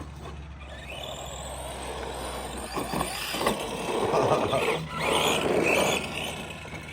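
ARRMA Granite Boost 1/10-scale RC monster truck driving, its electric motor and tyres running, louder from about four seconds in.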